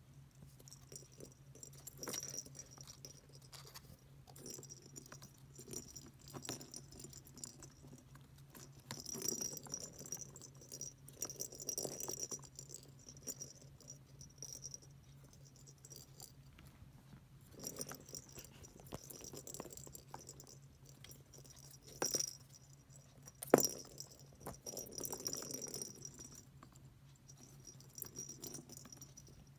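Cat track toy rattling and clattering as a kitten plays with it: balls rolling and knocking inside the plastic track, with light taps of paws on the toy. It comes in scattered bouts, with one sharp knock about two-thirds of the way through.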